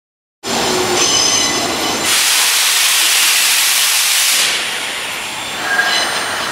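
Railway noise cutting in about half a second in: thin high squealing tones from train wheels, then a loud steady hiss for about two and a half seconds that dies away, with more squealing tones near the end.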